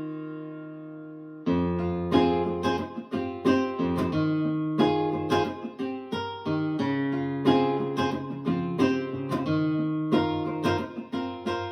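Acoustic guitar music playing back through Wharfedale Diamond 9.0 bookshelf speakers. A held chord fades away, then about a second and a half in the music cuts back in abruptly with a run of picked notes and chords.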